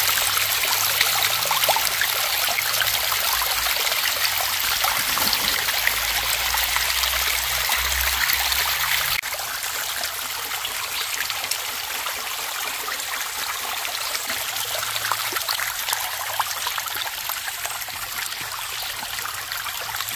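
Shallow stream trickling and splashing over mossy rocks, a steady water sound. It drops a little in level at a cut about nine seconds in.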